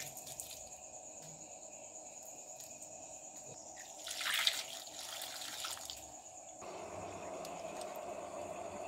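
Water poured from a cup into a pot of cut drumstick pieces, splashing for about two seconds starting about four seconds in, after a few faint drips of salt water shaken from a hand at the start.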